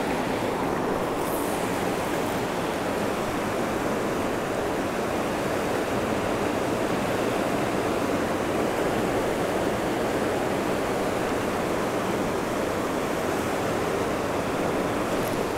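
Steady rushing of a fast river running through rapids, an even, unbroken wash of water noise.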